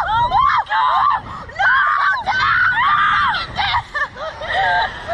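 A young woman screaming in a run of high-pitched screams, one after another with short breaks between them. These are thrill screams from being flung about on a slingshot ride.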